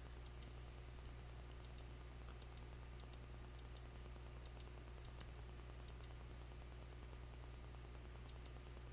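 Computer mouse button clicking faintly, in quick pairs of press and release, about ten times with a pause of a couple of seconds near the end, over a steady low electrical hum.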